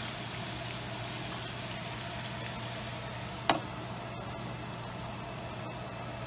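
Eggplant and ground bison sizzling steadily in a non-stick frying pan with a little water added, and one sharp clink about three and a half seconds in as a glass lid is set on the pan.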